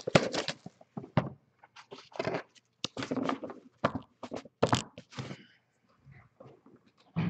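Handling noise from opening a box of trading-card packs and taking the packs out: irregular rustles, scrapes and taps, busiest in the first second and again around the middle, sparser near the end.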